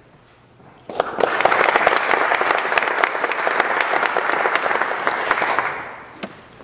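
Audience applauding, starting abruptly about a second in and dying away near the end, followed by a single knock.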